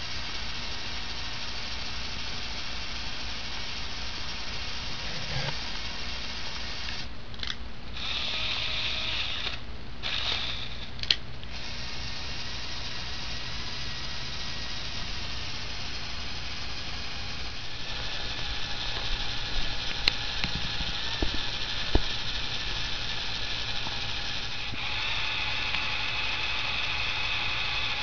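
Lego Power Functions motor driving the buggy's worm-gear winch, whirring steadily through plastic gears as it hauls the buggy up a wooden incline. A few sharp clicks come in the middle, and the whir gets fuller and brighter near the end.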